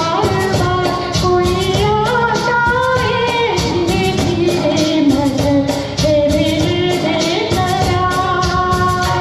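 Live performance of a Hindi film song: singing over a band accompaniment with a steady percussion beat.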